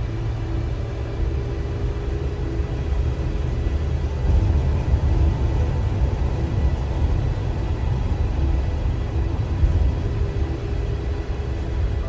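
A car driving along a road: a steady low rumble of tyres and engine with an even hiss of road noise, swelling slightly about a third of the way in.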